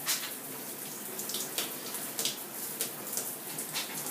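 Water running and splashing in a shower stall onto wet hair, a steady hiss dotted with frequent small wet splatters.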